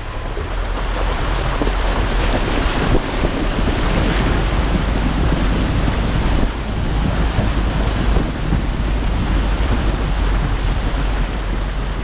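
Water surging and splashing as a Mitsubishi SUV's wheels push through a shallow river ford, a steady rushing spray that builds over the first couple of seconds.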